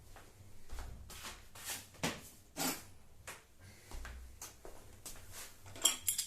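Scattered small clicks, knocks and brief scrapes of parts and tools being handled during assembly, with a louder clatter near the end.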